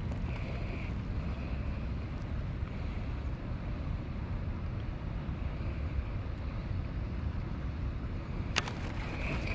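Steady low rumble of wind on the microphone over open water, with a faint whir coming and going and one sharp click near the end.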